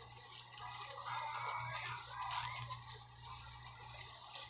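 Faint crinkling of plastic bubble wrap being handled and pulled at while a parcel is unwrapped, over a low steady hum.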